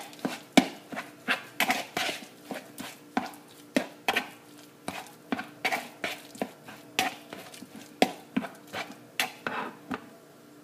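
Metal spoon stirring a thick banana and oatmeal mash in a plastic mixing bowl, knocking and scraping against the bowl in quick irregular clicks, about two or three a second. The stirring stops near the end.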